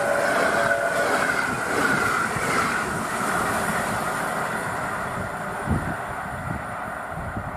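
A passenger train's last coaches rush past over snow-covered track, and the rolling rumble fades steadily as the train draws away. A single thump sounds about six seconds in.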